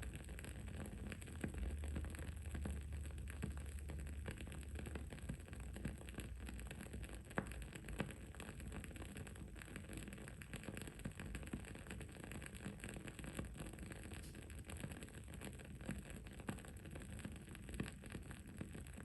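Wood-wick candle crackling: a continuous run of small, quick pops, with a couple of sharper pops about halfway through, over a steady low background hum and hiss.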